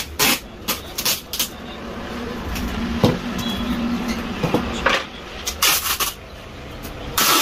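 Brown packing tape being pulled off the roll and pressed onto a cardboard shipping box, with short rips and knocks as the box is handled, and a longer rip near the end.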